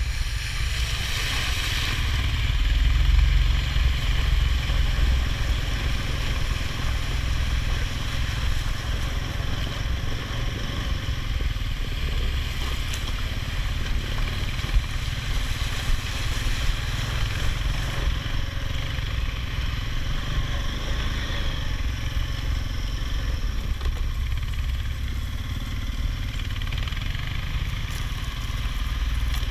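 ATV engine running steadily as the quad is ridden, a little louder for a moment a couple of seconds in. There is one sharp click about halfway through.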